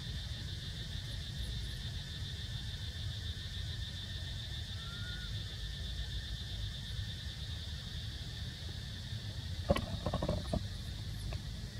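Steady high, pulsing insect drone over a low rumble. About ten seconds in, a brief cluster of clicks and short squeaks.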